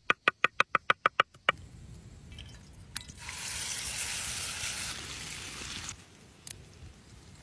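A quick, even run of sharp knocks, about eight a second, in the first second and a half. Then a hiss of splashing liquid starts abruptly about three seconds in and cuts off near six seconds.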